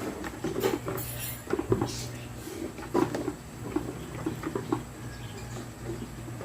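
Irregular small metallic clicks and scrapes of long-nose pliers working at the fuse's wire connection inside an electric pressure cooker, tugging at a connector that will not come loose.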